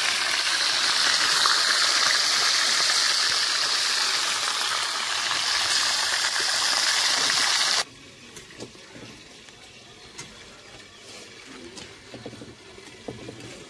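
Pieces of fish head frying in hot oil in an iron wok: a loud, steady sizzle that cuts off suddenly about eight seconds in, leaving only faint background sounds.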